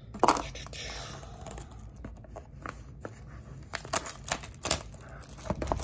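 Clear plastic shrink wrap being torn and peeled off a cardboard trading-card box by hand, crinkling and crackling in irregular bursts.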